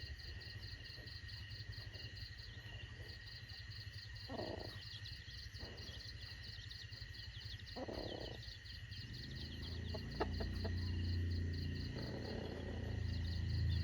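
Chickens clucking, two short calls about a third and two-thirds of the way through, over steady rapid chirping of crickets or other insects. A low steady hum with a few clicks comes in about two-thirds of the way through.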